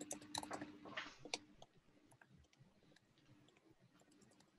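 Near silence over a faint low hum. In the first second and a half a cluster of small clicks and a short rustle sound close to the microphone, and faint scattered ticks follow.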